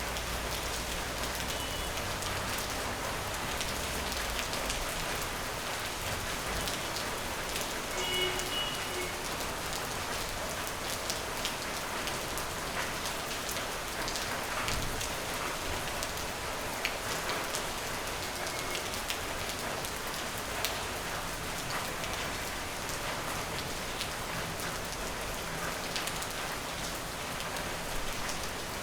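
Steady rain falling on a surface: an even hiss with many individual drops ticking through it at a constant level.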